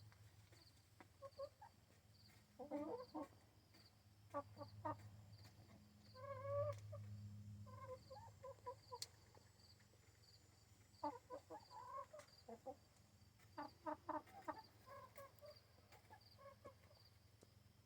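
Backyard hens clucking softly in short bunches of calls, several times over, with a faint steady low hum underneath.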